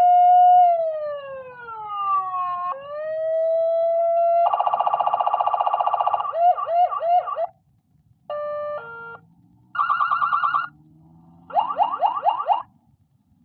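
Senken 60-watt siren module sounding electronic siren tones fed through its aux input. A held tone falls and then climbs back. It is followed by a fast pulsing warble, a few whoops, and several short bursts of rapid chirps separated by brief silences in the second half.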